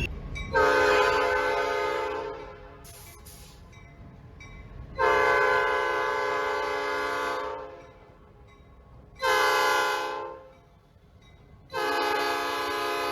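Locomotive horn sounding four blasts, long, long, short, long: the pattern of the standard grade-crossing signal. The last blast is still sounding at the end, over a low rumble.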